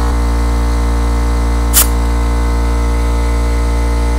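Steady hum throughout, with one short, sharp hiss of air at the tyre's valve stem just under two seconds in.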